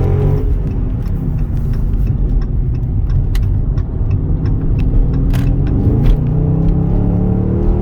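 2020 Dodge Charger Scat Pack's 6.4-litre 392 HEMI V8 running under way on its stock exhaust, a steady drone that climbs slowly in pitch in the second half as the car gathers speed.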